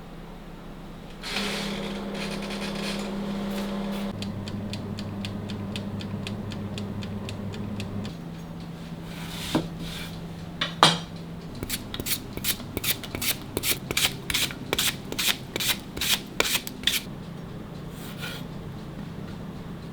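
A small motor starts about a second in with a rasping, scraping sound, its hum shifting pitch a couple of times. In the second half comes a quick run of sharp clicks, two or three a second.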